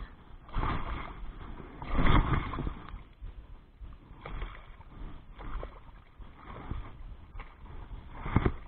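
Water splashing and sloshing in irregular bursts as a hooked pike thrashes at the surface while being drawn in; the loudest splash comes about two seconds in.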